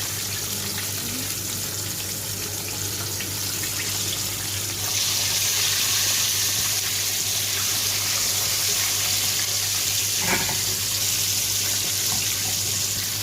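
Whole fish deep-frying in hot oil: a steady sizzle that grows louder about five seconds in, with one brief knock about ten seconds in.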